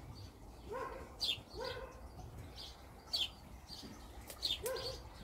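Small garden birds chirping again and again, with a dog barking three short times.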